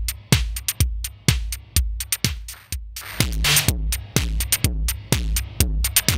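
Aggressive, distorted electronic drum pattern from a modular synth rig, run through the Mutant Hot Glue module's distortion, effects loop and compressor. A steady kick lands about twice a second under a heavy bass line, with gritty noise hits on top that thin out briefly and come back dense and loud about three seconds in.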